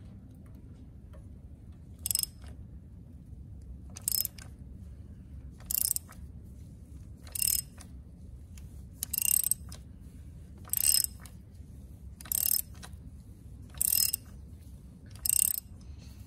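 Hand ratchet with a 27 mm socket unscrewing the oil filter canister on a Ford 2.7 EcoBoost engine: a short burst of pawl clicking on each back-swing, nine times, about every second and a half.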